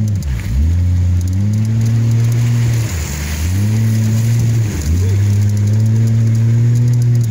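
Off-road vehicle's engine revving under load through mud, the revs dropping sharply and climbing back about three times.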